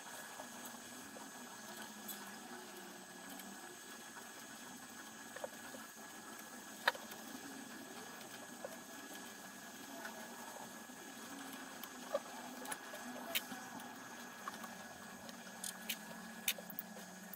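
Faint rubbing and scratching of thread being drawn around small copper-plated nails on a string art board, with a handful of light clicks, most of them in the second half.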